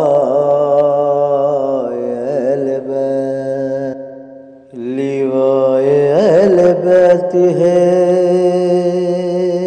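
Chanted outro jingle: a voice holding long, drawn-out notes in two phrases, with a short break a little before halfway.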